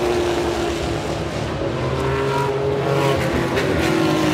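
Several vintage Porsche race cars running on the track at speed, their engine notes overlapping and rising and falling in pitch.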